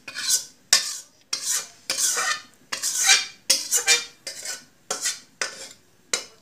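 A metal spoon stirring and scraping thick fish curry in a metal pan: about a dozen quick strokes, roughly two a second.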